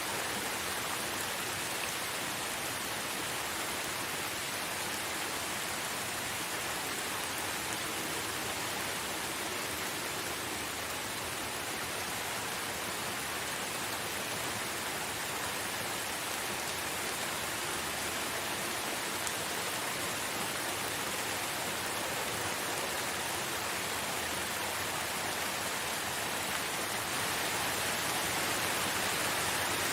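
Steady heavy rain: a dense, even hiss with no separate drops standing out, growing a little louder near the end.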